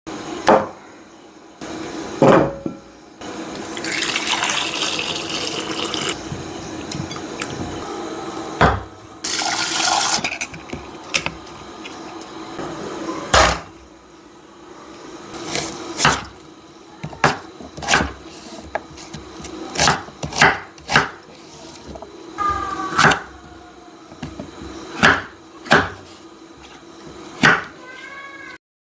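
Kitchen cooking sounds: a tap runs twice for a second or two, and utensils and cookware knock and clink again and again, with a few short metallic rings.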